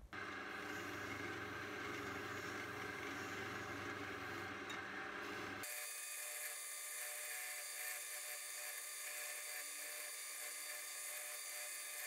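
Pillar drill spinning a Scotch-Brite wheel, running steadily with a whirring whine while the brass collar of a wooden tool handle is polished against it. About halfway through the sound changes abruptly, losing its low rumble and leaving a thinner whine.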